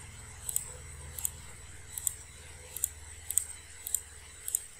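A series of light, sharp clicks, most of them in quick pairs, coming unevenly about every two-thirds of a second over a faint low hum.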